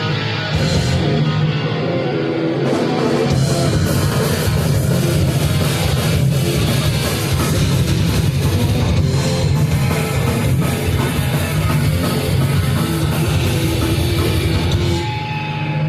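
Heavy metal band playing live: distorted electric guitars over a fast drum kit. About a second before the end the drumming stops and a single low note is held steady.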